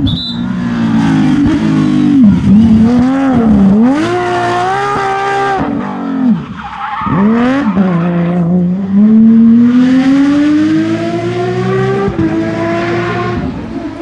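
Porsche 997 GT3 rally car's flat-six engine at full throttle on a rally stage. The revs drop and rise several times as it downshifts with throttle blips, briefly cut off about halfway through, then rise in one long pull through a gear with an upshift near the end.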